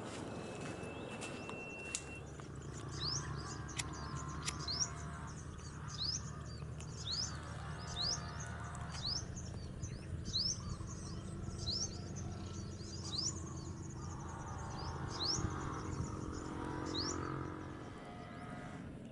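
A bird calling over and over: short, quick upward-sweeping notes, a little more than one a second, over a steady low hum.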